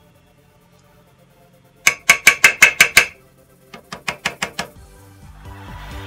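A screwdriver tapping rapidly against the vacuum cleaner's motor, making sharp metallic clicks that ring: a fast run of about nine about two seconds in, then a quieter run of about seven. Background music starts near the end.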